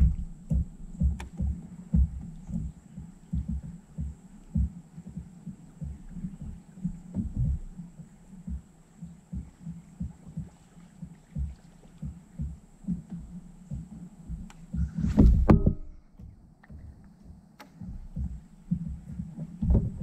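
Low, irregular hollow thumps of river water lapping and knocking against the plastic hull of a fishing kayak while it trolls along, with a brief louder burst about fifteen seconds in.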